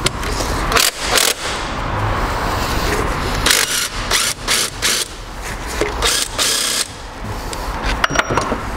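Hand tools working on a car's engine mount in the engine bay: a string of irregular clicks and knocks, with two longer noisy stretches about three and a half and six seconds in.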